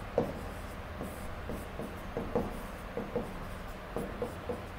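Pink chalk writing on a blackboard: a quick, irregular run of short taps and scrapes as each stroke of the letters goes down.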